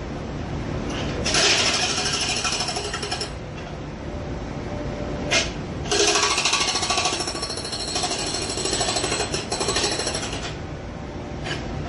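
Jackhammer hammering in two bursts, one about two seconds long and one about four and a half seconds long, with brief single jabs between and near the end. Under it runs a low steady rumble of city background noise.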